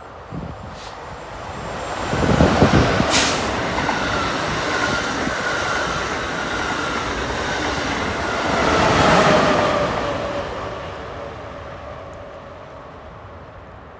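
Amtrak Acela Express trainset passing at speed: a steady rush of wheels on rails and air that builds as the front power car arrives, with a sharp crack about three seconds in, swells again as the rear power car goes by around nine seconds, then fades. A faint whine falls in pitch as the train passes.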